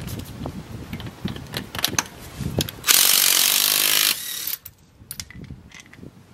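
DeWalt cordless impact wrench hammering a lug nut loose, running for just over a second about three seconds in. Before it come a few light clicks and knocks, and a few faint clicks follow it.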